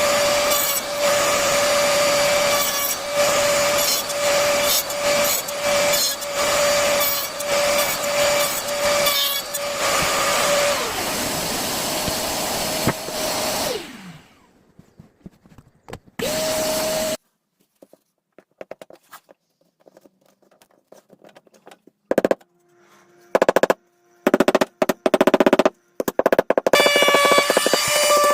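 An electric power tool's motor running with a steady whine, broken up again and again as the work goes on, then winding down and stopping about halfway through. After that come scattered knocks and short bursts of the tool, and the whine starts up again near the end.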